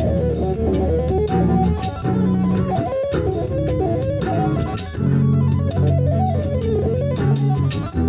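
Extended-range electric guitar played with two-handed tapping in a bluesy jam: low bass notes held under a wandering melody line, with a sharp percussive hit about every second and a half.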